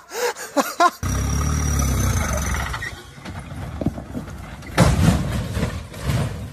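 A voice breaks off, then an off-road 4x4's engine comes in loud and steady under load on a rutted dirt track, easing off about three seconds in. A louder burst of noise follows near the end.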